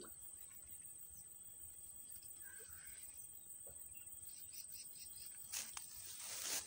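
Insects chirring steadily in a high, even drone. About four and a half seconds in comes a short run of about six quick high notes. Near the end a brief rising hiss is the loudest sound.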